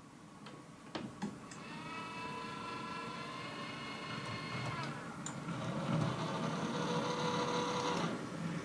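Motor of a model railway level crossing lowering its barriers. A few clicks come about a second in, then a small electric motor whines steadily, shifts to a lower tone about five seconds in, and cuts off sharply about eight seconds in as the barriers come down.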